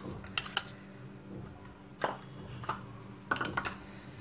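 Kitchen utensils being handled around a glass mixing bowl: a few light, sharp clicks and taps, the loudest cluster near the end, over a faint steady hum.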